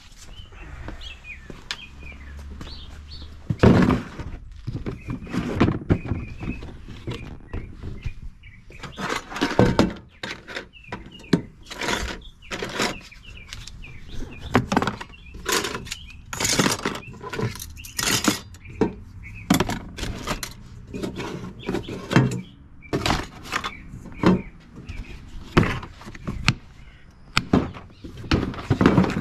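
Irregular knocks, thunks and clatter: many separate sharp impacts, some close together and some a second or more apart.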